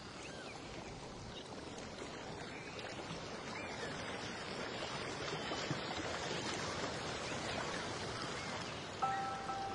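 Underwater water noise picked up through a GoPro's waterproof housing just below the surface: a steady rushing and sloshing, with many faint short chirps scattered through it. Background music with held notes comes in near the end.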